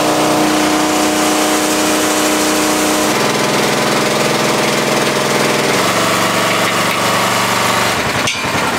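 Truck engine running steadily while driving, its engine note changing in steps twice, about three and six seconds in.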